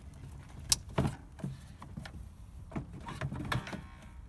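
Hard plastic knocks and clicks from a Ford Focus Mk2 headlight unit being handled and slid back into place, with a sharp click about three-quarters of a second in and a heavier knock just after.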